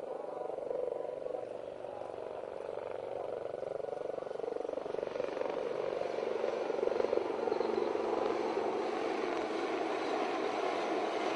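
A formation of HAL Dhruv helicopters flying overhead, their rotor and engine noise steady at first and growing louder after about five seconds.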